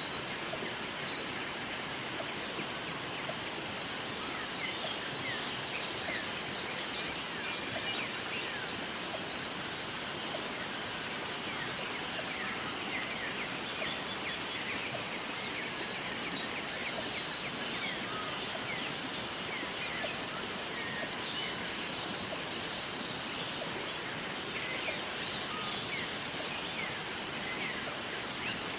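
Jungle waterfall ambience: steady rushing water with many short bird chirps scattered throughout. A high, steady buzz about two seconds long repeats roughly every five seconds.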